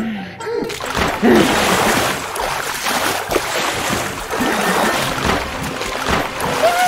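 Cartoon water sound effects: a continuous rushing splash of water as figures skim fast across the surface, with a few short vocal cries in the first second.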